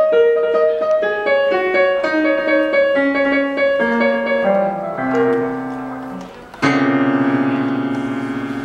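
Background piano music: a run of short notes stepping downward in pitch, then a loud held chord struck about two-thirds of the way through.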